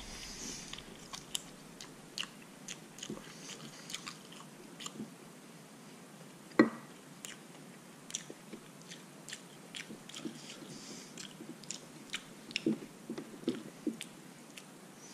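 A person chewing boiled polar bear paw meat and pulling it off the bones by hand: soft, scattered mouth clicks and smacks, with one louder sharp click about six and a half seconds in.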